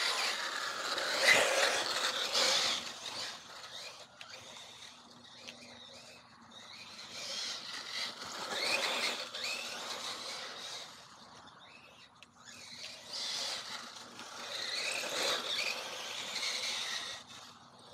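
Electric-converted Mugen MBX8 1/8-scale RC buggy on a 4S LiPo: its electric motor and drivetrain whine, rising and falling in pitch as it speeds up and slows, in three surges.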